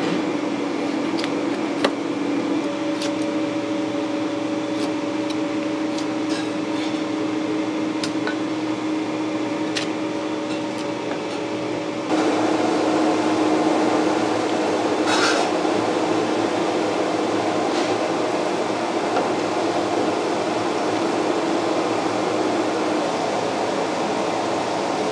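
Steady hum of kitchen ventilation, with scattered light knocks of a cleaver cutting fish on a wooden chopping board in the first half. About halfway through, the background turns abruptly louder and busier and stays steady.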